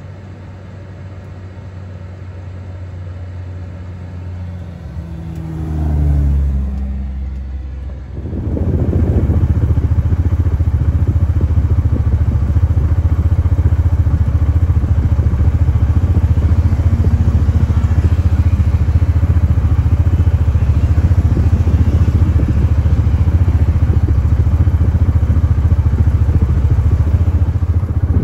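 Side-by-side UTV's engine running under way. It changes pitch briefly, dips, then about eight seconds in picks up to a much louder, steady drive with road and wind rush.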